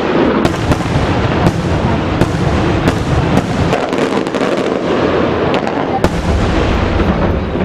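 Aerial fireworks display: shells bursting in a string of sharp bangs, roughly every half second to a second, over a continuous dense rumble and crackle, with one of the sharpest bangs about six seconds in.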